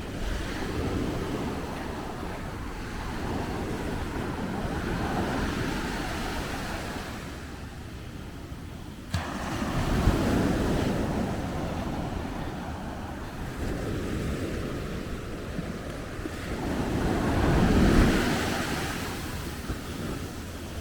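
Ocean surf breaking and washing up the beach, a noisy wash that swells and ebbs, with two louder surges about ten seconds in and near the end. A short sharp click just before the first surge.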